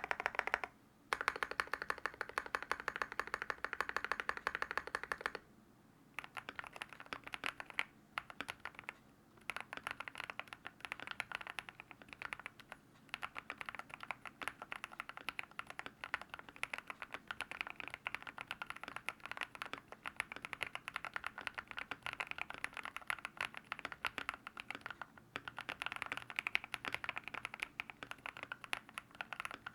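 Typing on a mechanical keyboard with linear switches: a fast, dense run of keystroke clacks with short pauses. The typing is louder for about the first five seconds, stops briefly, then goes on more softly.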